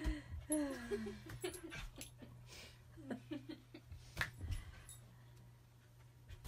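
Corgi whining in a falling pitch, then a few scattered light knocks as it bops a balloon about, over a low steady hum.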